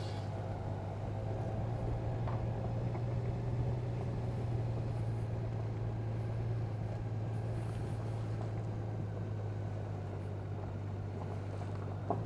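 Honda Gold Wing's flat-six engine running at low speed as the motorcycle rolls slowly along. It makes a steady low hum.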